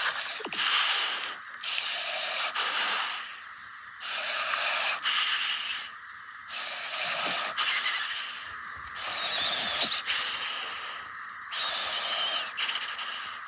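An animal snoring in its sleep: about six hissing, wheezy breaths, one every two seconds or so.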